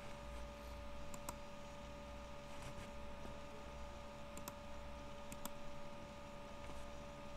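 Faint computer mouse clicks, about five, some in quick pairs, over a steady electrical hum.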